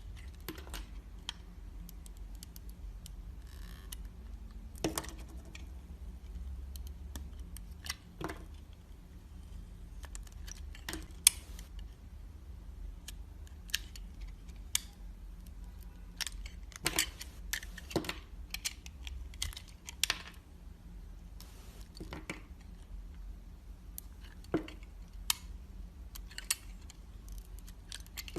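Knife carving into a bar of soap: irregular, crisp cuts and scrapes of the blade through the soap, many of them spread unevenly, over a low steady hum.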